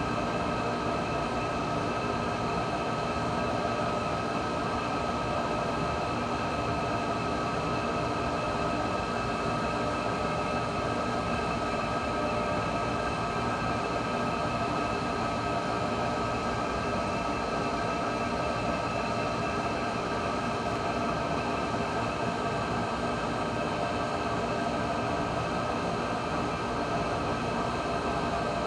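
Steady, unchanging droning hum with several fixed tones over a constant hiss, like a running motor or fan.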